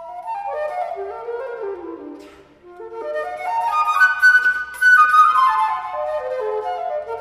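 Background music led by a flute playing runs of notes that climb and fall in steps.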